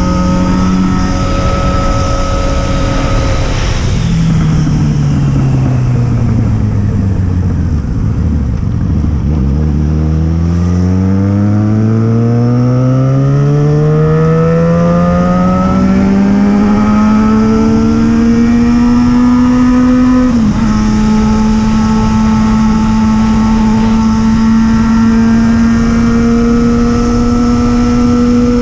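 Yamaha XJ6 motorcycle's 600 cc inline-four engine running loud and held at steady revs. About four seconds in the revs ease slowly down to a low rumble, then climb slowly and smoothly for about ten seconds to a higher pitch, which is held steady, with a brief dip partway through.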